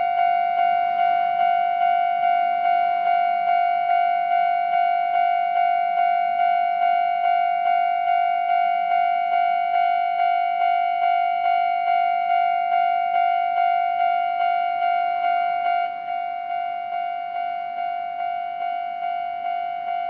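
Japanese railway level-crossing warning bell ringing: an electronic bell striking a steady tone about twice a second. About 16 s in it turns quieter, the crossing's volume being reduced once the barriers are down.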